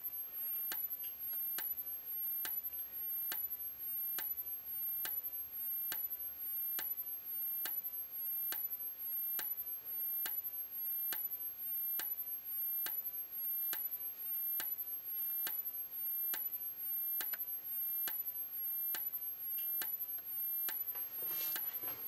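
75 cd, 24 V strobe of a System Sensor SP1R2475ADA fire alarm speaker/strobe flashing: a sharp click with each flash, a little more than once a second, over a faint, steady, very high-pitched charging whine that jumps with every flash.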